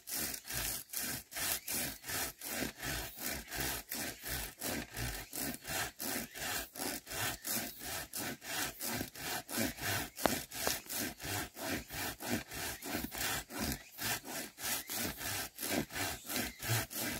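A hand pruning saw cutting through a green bamboo stem in steady back-and-forth strokes, each stroke a rasping scrape of the teeth through the wood.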